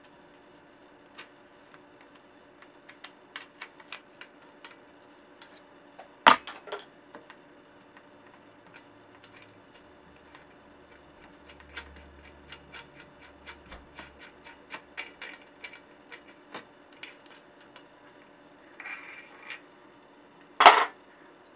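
Light metallic ticks and clicks as the bearing cone is worked off the threaded spindle of a one-piece bicycle crank. There is a brief scrape near the end and two sharp metal clanks, one about six seconds in and the loudest near the end.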